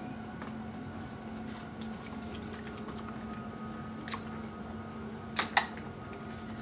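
Screw cap of a bottle of tea being twisted open: a click about four seconds in, then two sharp clicks close together near the end. A steady low hum runs underneath.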